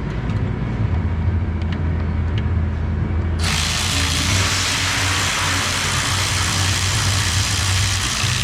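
A car engine idling with a steady low hum. About three and a half seconds in, a power tool starts running loudly with a hissing whir over it.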